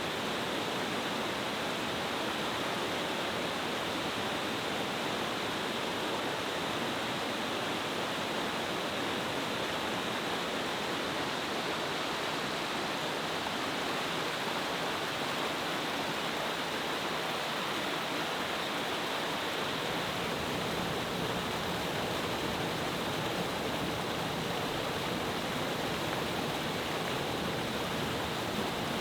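Cascading mountain-stream waterfall, water falling powerfully over several rock steps in a steady, even rush.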